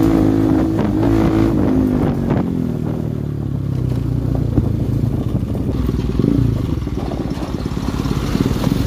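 Bajaj Pulsar NS200's single-cylinder engine running as the bike is ridden down a rough gravel track. The engine note is clear for about two and a half seconds, then drops back and mixes with rattling from the rough surface.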